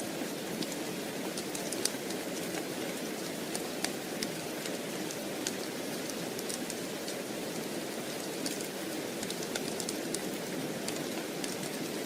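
Steady rain falling, with scattered sharp ticks on top.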